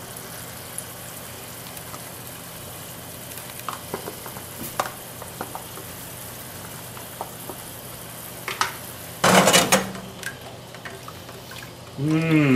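Red wine reduction and demi-glace simmering and sizzling in a hot sauté pan, with light taps and scrapes of a rubber spatula as the demi-glace is scraped in from its tub. A louder burst of noise comes about nine seconds in, and a short hum of a voice near the end.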